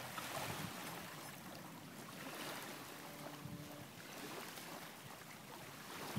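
Small waves washing faintly and steadily on a pebble shore, with a light breeze.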